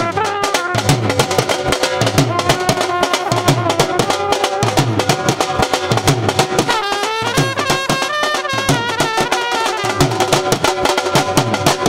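A small brass band playing: a brass horn carries a wavering melody over a large marching bass drum and a side drum beaten in a fast, steady rhythm.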